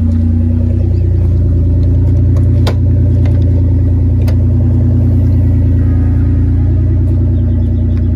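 1999 Toyota 4Runner's 3.4-litre V6 idling with its muffler cut out, a loud, steady low exhaust drone. Two sharp clicks stand out, a little under three seconds in and again about four seconds in.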